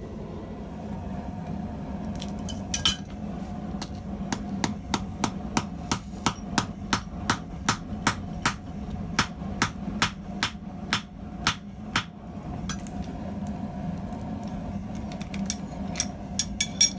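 Blacksmith's YK30 steel stubby hammer striking to head an 8 mm steel rivet on the anvil, each blow giving a short bright metallic ring. A few blows come first, then a steady run of about three blows a second, then a pause and a few lighter taps near the end.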